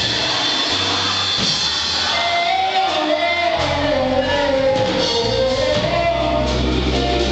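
Gospel choir singing live with a band: a sung melody over sustained low bass notes, with drums and cymbals.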